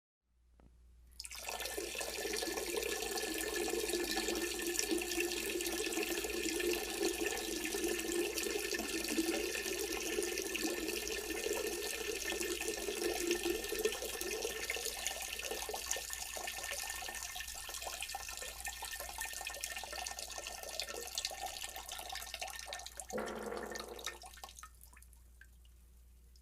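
A man urinating into a toilet bowl: a steady stream splashing into the water starts about a second in, runs on for over twenty seconds, and tapers off near the end. A brief lower sound comes shortly before the stream stops.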